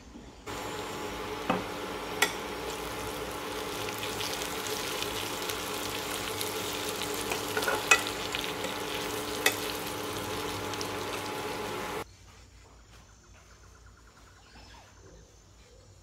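Sliced potatoes sizzling as they fry in a pan, stirred with a metal spoon that clicks sharply against the pan a few times. The sizzling cuts off suddenly about 12 seconds in, leaving only faint room sound.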